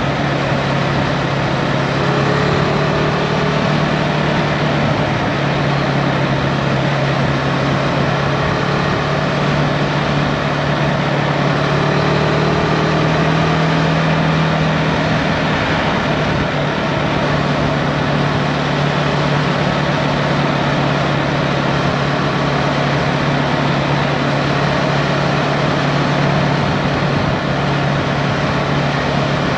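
Husqvarna Svartpilen 401's single-cylinder four-stroke engine running steadily while cruising, over a constant rush of wind and road noise. The engine note lifts a little about halfway through, then settles back.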